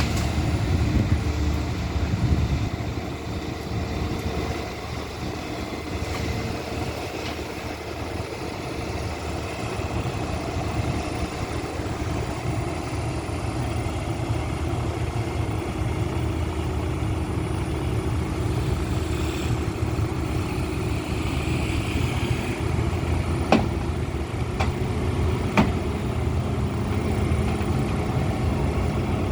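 Heavy diesel engine running steadily, with two short sharp knocks about two seconds apart near the end.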